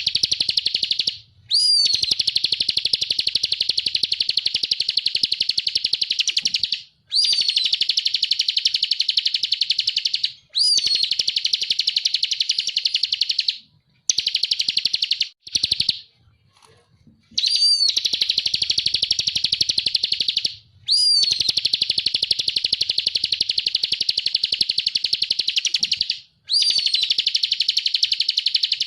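Ciblek kristal (a prinia) singing in long phrases of rapid, high-pitched chattering notes, each phrase opening with a brief rising-and-falling whistle, the phrases broken by short pauses, with a longer pause about halfway.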